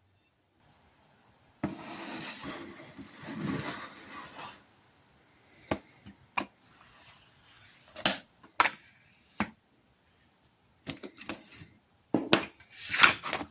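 Small metal tools and parts handled at a workbench: a rough scraping for a few seconds, then a scatter of sharp metallic clicks and knocks, a few of them loud.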